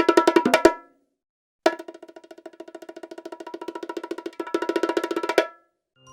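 A rapid roll of pitched percussive knocks, about a dozen a second. A short run stops just under a second in; after a brief silence, a longer run starts soft, grows louder and stops about five and a half seconds in.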